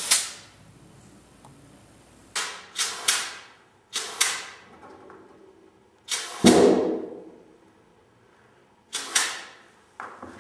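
Short blasts of compressed air from an air blow gun, about eight of them, some in quick twos and threes, each a sharp hiss that dies away within half a second. The longest and loudest blast comes about six and a half seconds in.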